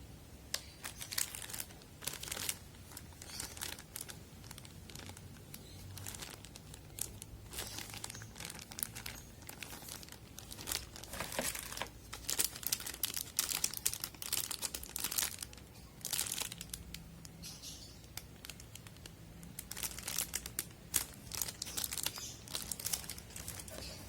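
Plastic packaging crinkling as it is handled during an unboxing of computer parts, in many irregular bursts of crackle.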